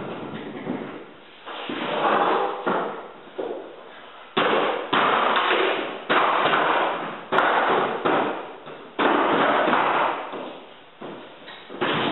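Hardwood floor being installed: a series of sharp wooden knocks and slams, a few scattered at first, then about one a second from about four seconds in, each trailing off briefly.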